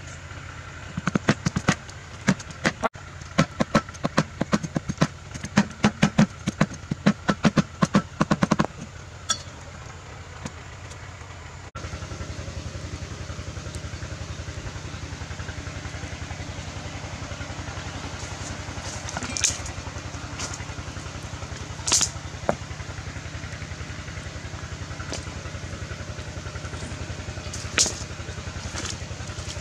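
A cleaver chopping through a raw duck on a round wooden cutting board, a rapid run of sharp strikes at about three a second that stops near nine seconds in. After a cut, a steady low rumble with a few sharp snaps from the wood fire under an empty wok.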